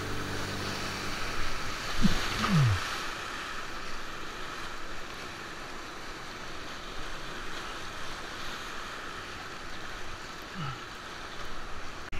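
Whitewater rapids rushing around a kayak: a steady noise of churning, splashing water. Two short falling sounds come about two seconds in, and another near the end.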